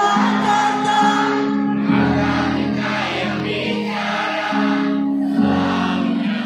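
Live band music with sustained chords and singing, loud and continuous, at the start of a pop ballad played on stage.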